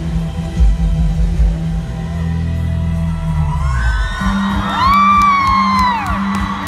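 Live band music with a drum kit keeping a steady, bass-heavy beat. About four and a half seconds in, a long high note rises and then falls over the music.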